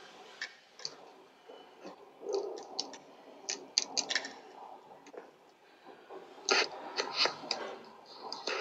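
Irregular sharp clicks and scraping noises, coming in clusters about halfway through and again near the end.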